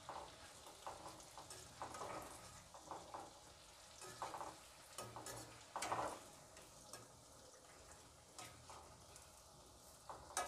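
Gulgule (jaggery and wheat-flour batter fritters) deep-frying in hot oil in a wok, with a faint sizzle. A metal slotted spoon scrapes and clinks against the wok every second or so as the fritters are turned over.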